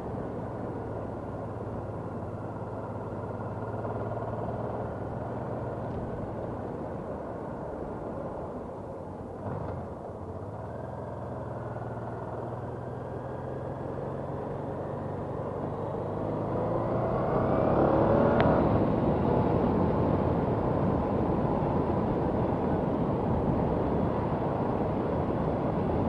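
Honda NT700V Deauville's V-twin engine running steadily under way, heard from a helmet camera with wind and road noise over it. The engine note breaks off briefly a little over a third of the way through, and the noise swells louder about two-thirds through and stays up.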